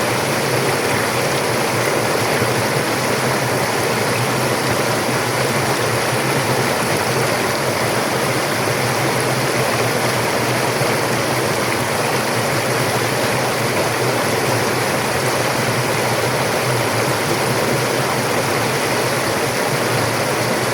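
A forest river rushing over rocks, a steady, even sound of running water that cuts off right at the end.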